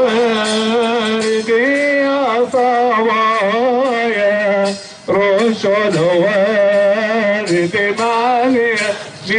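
Music of an Arabic Coptic hymn to the Virgin Mary: a single melody line with ornamented, wavering pitch, breaking off briefly about five seconds in and again near the end.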